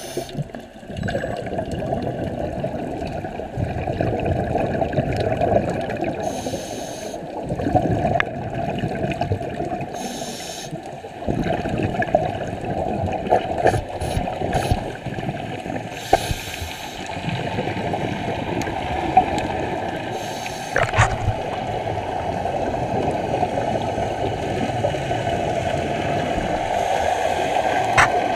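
Scuba diver breathing through a regulator, heard underwater: a short hissing, bubbling rush every four to six seconds over a steady low rumble of water.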